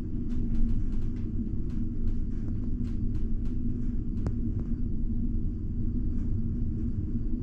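Steady low drone of a large ferry's engines and hull vibration inside a passenger cabin, with a steady hum running under it. Scattered light clicks and ticks sound over it through the first half.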